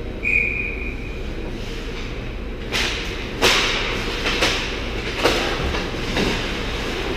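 Ice hockey play on an indoor rink: a short high whistle blast near the start, then from about a third of the way in, a series of sharp scrapes and clacks from skates and sticks on the ice, all over the arena's steady low hum.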